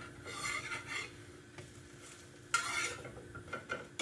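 A slotted metal spatula scraping against a frying pan twice, briefly each time, as French toast is worked in the pan, with a few small clicks near the end and faint sizzling underneath.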